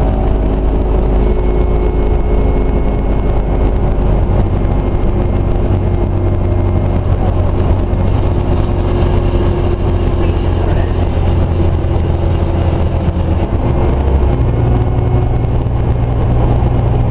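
Scania OmniCity single-deck bus's engine running, heard from inside the passenger saloon as a steady low hum. The low note steps up in pitch about fourteen seconds in.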